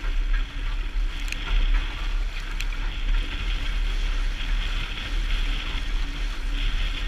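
Wind buffeting the camera's microphone over the rush of water along a small sailboat's hull under sail in a chop, with a couple of small clicks about a second and two and a half seconds in.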